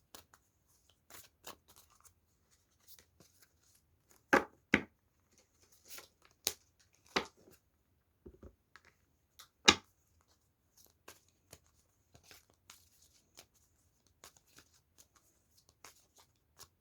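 A deck of cards being shuffled and handled, with scattered soft clicks and a few sharp card snaps, the loudest a pair about four seconds in and another near ten seconds.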